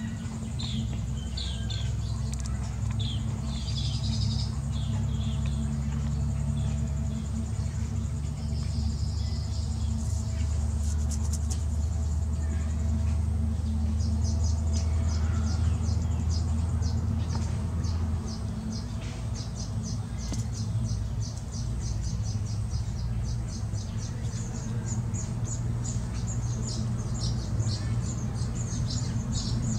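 Baya weavers chirping at their woven grass nest: scattered high chirps at first, then, about halfway in, a fast run of short even chirps begins, several a second. A steady low rumble runs underneath.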